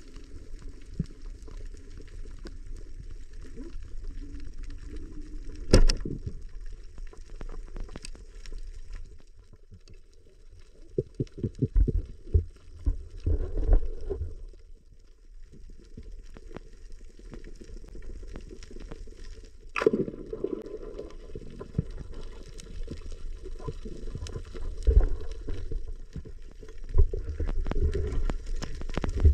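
Underwater sound picked up by a camera in a waterproof housing: a muffled, low rush of water with bunches of dull thumps and knocks, and two sharp clicks, one about six seconds in and one near the twenty-second mark.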